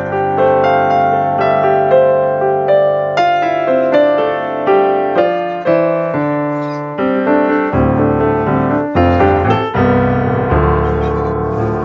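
Background piano music: a run of piano notes and chords, each struck and then fading.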